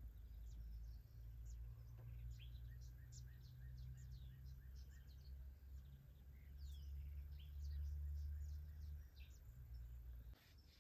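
Faint outdoor ambience: several birds chirping and calling, including a short run of quick repeated notes, over a steady low rumble that drops away shortly before the end.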